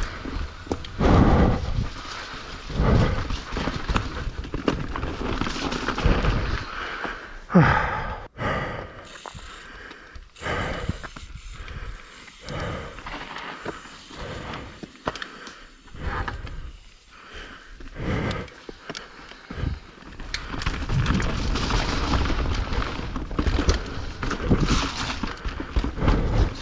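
Mountain bike riding down a dirt trail: wind buffeting the microphone, tyres on the ground, and the bike thumping and rattling over bumps, in uneven surges.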